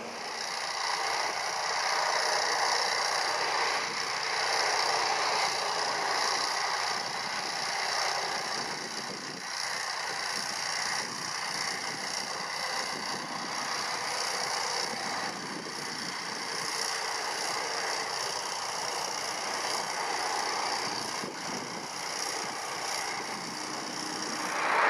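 Steady rushing jet-engine noise from a Delta Airbus A330-200 moving along the runway for takeoff.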